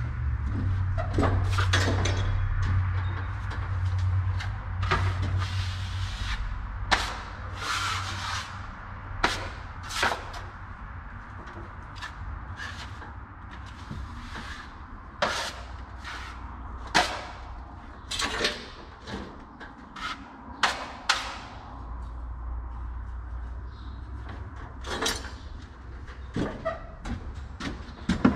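Drywall taping knife scraping and wiping joint compound along a wall joint: a series of short, irregular scrapes and knocks over a low hum that fades out after about six seconds and comes back near the end.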